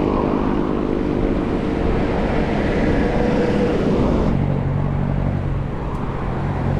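Road noise heard from a moving bicycle: wind rushing over the microphone, with a motor vehicle's engine running close by. About four seconds in the sound changes suddenly and drops lower in pitch.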